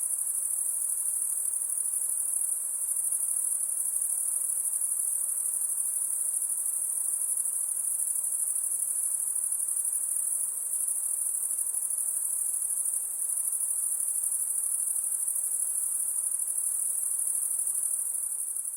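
A dense chorus of insects trilling steadily at a high pitch, beginning to fade out near the end.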